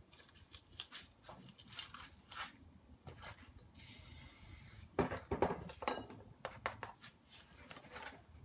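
Aerosol spray paint can hissing in one short, steady burst of about a second midway through, between irregular rubbing and scraping sounds of hands working over the painting surface.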